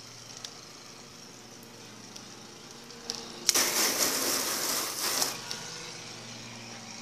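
Water spray from a garden-hose spray gun rinsing the soap off a pickup truck's door and window. It hisses on the panels and glass from about three and a half seconds in for nearly two seconds, starting sharply, over a faint low steady hum.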